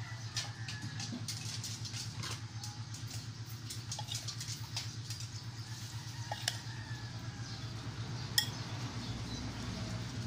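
A metal spoon clinking and scraping against a bowl while stirring a wet salad, in many small irregular clicks with one sharper clink about eight seconds in. A low steady hum runs underneath.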